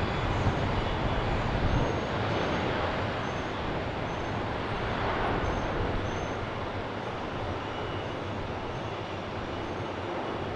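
Boeing 747's four jet engines running as the airliner rolls along the taxiway, a steady rushing rumble that eases a little after the first couple of seconds.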